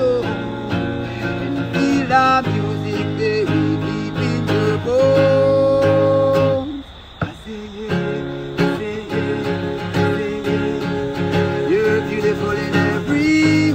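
A man singing with an acoustic guitar, the voice holding long notes over the chords. The music briefly drops away about seven seconds in, then picks up again.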